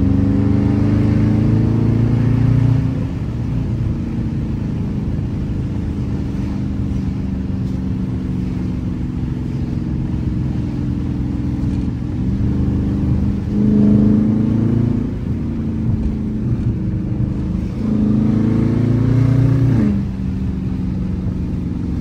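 Dodge Charger R/T's 5.7-litre HEMI V8 heard from inside the cabin while driving, running steadily at cruise. Twice, about twelve and eighteen seconds in, it gets louder with its pitch climbing under acceleration, then drops suddenly in pitch.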